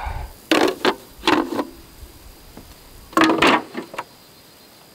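Plastic lids of an Instant Pot multicooker clattering and scraping as they are handled and set down on a wooden table, in three short bouts.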